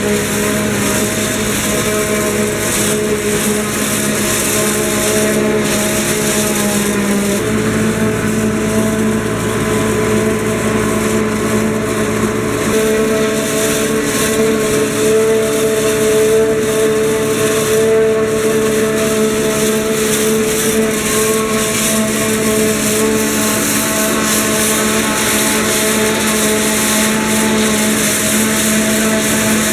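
Unimog 406 six-cylinder diesel running steadily under load while driving a PZ MH 80 S single-row forage harvester chopping maize, engine and chopper together as one loud, steady drone. Its pitch shifts slightly twice, about 7 and 13 seconds in.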